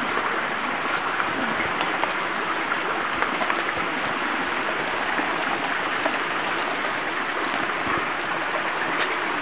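River water flowing, a steady rushing noise, with a few short high chirps over it every second or two.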